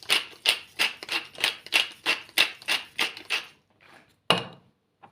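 Pepper grinder being twisted over a bowl of eggs, an even crunching rhythm of about three grinds a second that stops after about three and a half seconds. About a second later there is one sharp knock.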